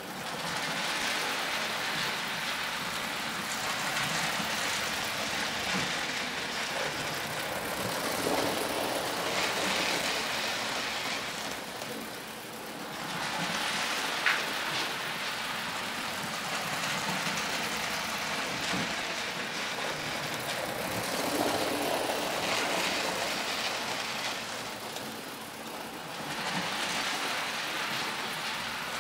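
Model trains running on a 00 gauge layout: a steady running hiss and rumble that swells and eases over a few seconds at a time, with a single sharp click about fourteen seconds in.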